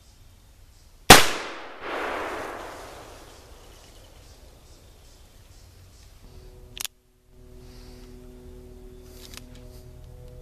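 A single shot from a Pietta .44 Colt 1851 Navy black-powder cap-and-ball revolver about a second in, followed by a long echo that swells back and dies away over about two seconds. A short sharp click comes near the end.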